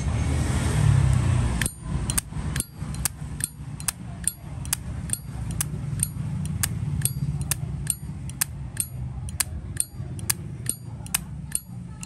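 A brass Zippo lighter's hinged lid being flicked open and snapped shut over and over, sharp metallic clicks about twice a second, starting a little under two seconds in.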